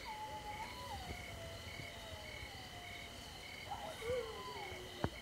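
A group of coyotes howling: long, wavering howls that slide downward, with a fresh howl rising about four seconds in. Behind them runs a steady chorus of night trills with a regular chirp about twice a second, and there is one sharp click near the end.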